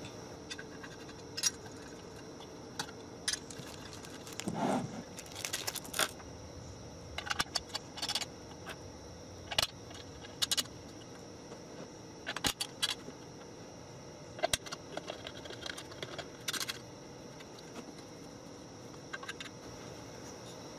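Small metal screws and hardware clinking and clicking at irregular intervals while a plastic hopper is fastened onto a stainless steel hopper flange, over a faint steady hum.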